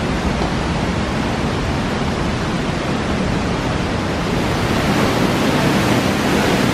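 Waterfall water rushing steadily, an even, full roar of falling water with no break in it.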